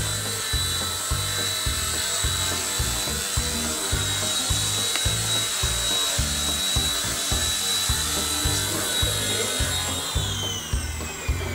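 Eachine E129 micro RC helicopter's electric motor and rotor whining steadily in flight. About ten seconds in, the whine falls in pitch as the helicopter is brought down to land and the rotors spin down. Background music with a steady beat plays throughout.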